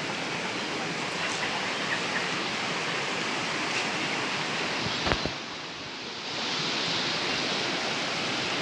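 Waterfall rushing in a steady roar of falling water. About five seconds in there is a brief knock, and the rush drops for about a second before returning.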